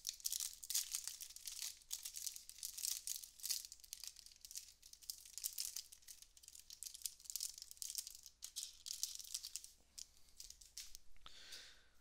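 Clear plastic wrapper of a trading-card pack crinkling as it is torn open and peeled off the cards: a rapid run of small crackles that thins out near the end.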